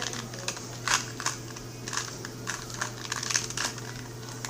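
Plastic 2x2 Rubik's cube being turned fast by hand: irregular clacking clicks of the layers snapping round, in quick flurries.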